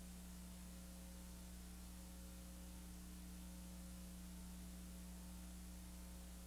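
Steady low electrical hum with faint hiss, unchanging throughout; no other sound.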